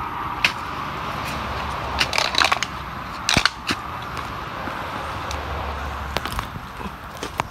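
A wooden stick jabbed into a crab burrow in mangrove mud among roots and debris, giving scattered sharp clicks and cracks. The loudest come in clusters a couple of seconds in and again just past three seconds. A steady hiss runs underneath.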